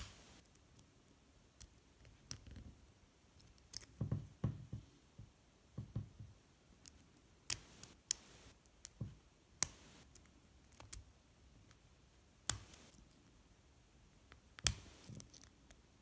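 Lock pick and tension wrench working the pin tumblers of a brass padlock: irregular sharp metallic clicks and ticks as the pick moves the pins. There are a few soft handling thumps about four to six seconds in.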